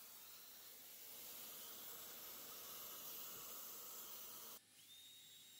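Near silence: a faint, steady hiss that drops away abruptly about four and a half seconds in, leaving a fainter hum with a thin high tone.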